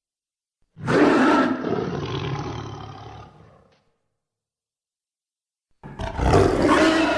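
Troll roars, a film creature voice built from walrus, tiger and horse sounds: one deep roar about a second in that fades away over three seconds, then after a pause a second, louder roar starting near the end.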